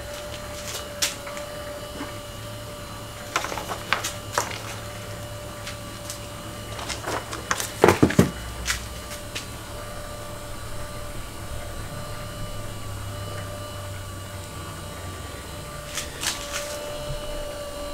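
Steady hum of a running motor, with clunks and metallic clatter at a few points as the cover is taken off a lathe's auxiliary gear drive. The loudest knock comes about eight seconds in.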